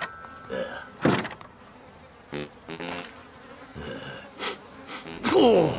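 Flies buzzing around a compost heap, with a thump about a second in and a loud sound sliding down in pitch near the end.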